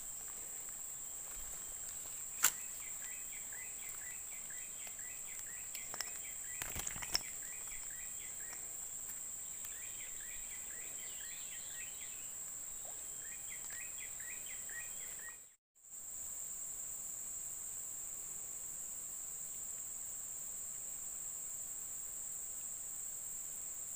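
Steady high-pitched drone of insects, with runs of short chirps over it in the first half. A few sharp clicks come about two and seven seconds in, and the sound cuts out for a moment about two-thirds through.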